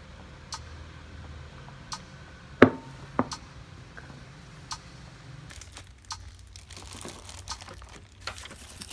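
Glass mug set down on a wooden table: a sharp clink with a short ring, followed by a second lighter knock. Scattered light clicks of cup and plate handling come before it, and a run of soft crinkling and clicking follows in the second half.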